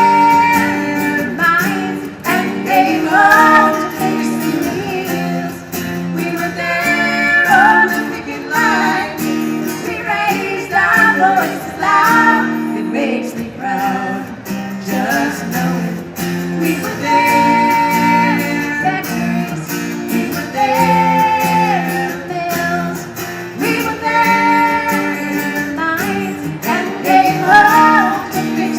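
Music: a song with a woman singing over guitar accompaniment.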